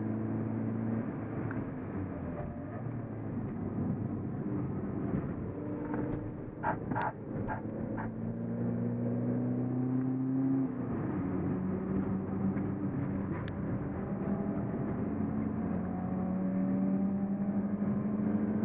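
Seat Ibiza TDI's turbodiesel engine heard from inside the cabin on track, its pitch rising as it accelerates, with a gear change about ten seconds in, after which it pulls up again. A quick run of short clicks about seven seconds in.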